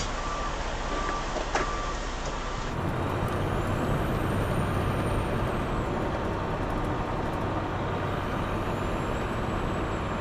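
Steady engine and road noise inside a truck's cab running at about 50 mph on a wet highway, with a low hum under it. It starts about three seconds in, after a short stretch of outdoor vehicle noise broken by a couple of sharp clicks.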